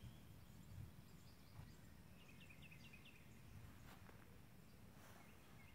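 Faint outdoor quiet with a steady low rumble, as of wind on the microphone. A distant songbird sings a quick run of about five short notes a little after two seconds in, and a few fainter chirps come near the end.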